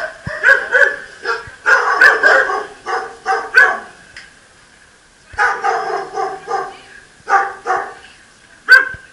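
Shelter dogs barking in their kennel runs, several voices overlapping in quick volleys. There is a quiet break of about a second around the middle and one sharp bark near the end.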